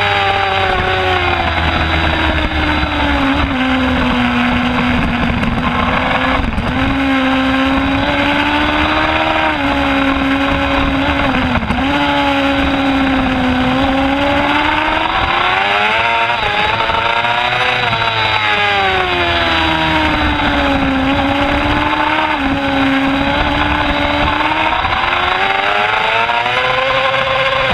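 Middleweight sport motorcycle engine at race speed heard onboard, its pitch repeatedly climbing and dropping through gear changes and corners, with several quick dips, over heavy wind rush.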